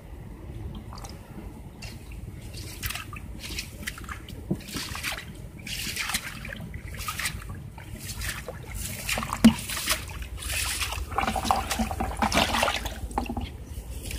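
Small fish splashing and flicking in shallow water in a plastic bucket: irregular splashes that come thicker towards the end, with one sharp knock about nine and a half seconds in.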